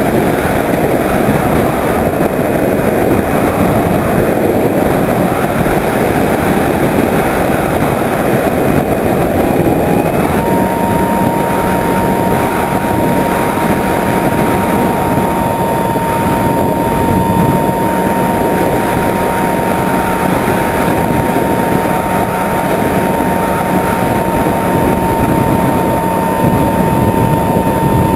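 Skyhunter RC plane's electric motor and pusher propeller in flight, heard from the onboard camera: a steady motor whine under heavy wind rush on the microphone. The whine steps up in pitch about ten seconds in and rises a little again at the very end as the throttle changes.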